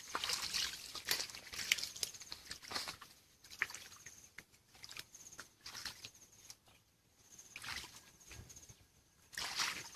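Hands and bare feet sloshing and splashing in a shallow muddy stream while groping for fish, in irregular bursts, busiest in the first few seconds and again near the end.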